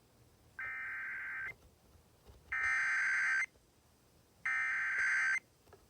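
Emergency Alert System SAME header: three short bursts of digital data tones, each just under a second long and about a second apart, the first quieter than the other two. The header carries the coded severe thunderstorm warning for alert receivers.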